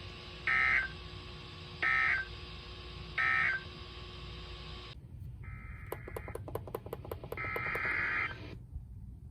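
Emergency Alert System End-of-Message data bursts: three short, identical buzzy warbling bursts about a second and a half apart, closing the weather radio alert. About five seconds in, two more short buzzy tones follow, with a fast train of clicks between them.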